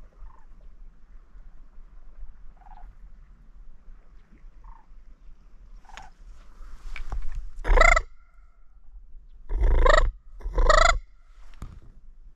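Sandhill cranes calling: a few faint calls, then three loud wavering calls about a second or two apart near the end.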